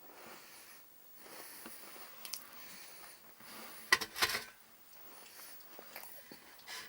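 Person chewing a digestive biscuit, with faint mouth and breathing noises. A brief sharp loud noise comes about four seconds in.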